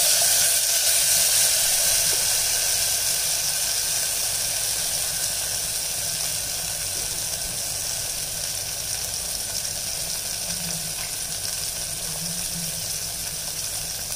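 Tamarind water sizzling and hissing in a clay pot on hot oil and ground masala paste, just after being poured in. It is loudest at first and slowly settles as the liquid heats.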